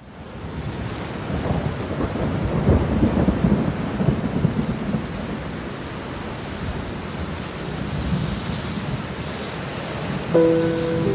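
Steady heavy rain fades in with a long, rolling rumble of thunder that swells over the first few seconds and then eases. About ten seconds in, a soft sustained music chord enters over the rain.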